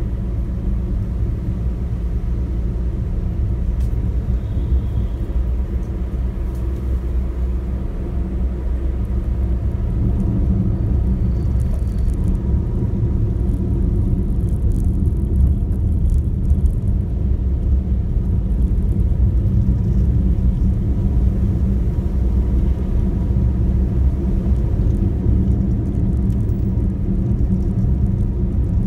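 A car driving at steady speed, its engine and tyre noise making a continuous low rumble that grows a little louder about ten seconds in.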